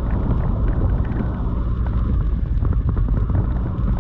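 Heavy downpour hitting a moving vehicle, many quick drop ticks over a steady low rumble of road and wind noise.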